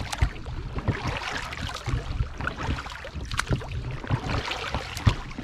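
Water splashing and lapping around a small rowed dinghy, with irregular knocks from the boat and its oars. A low rumble of wind noise runs underneath.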